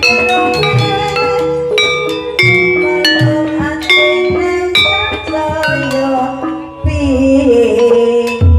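Javanese gamelan playing the accompaniment for an ebeg (kuda lumping) trance dance: struck, ringing metallophone and gong tones over drum strokes in a steady rhythm. About seven seconds in, a held, wavering melody line comes in over the percussion.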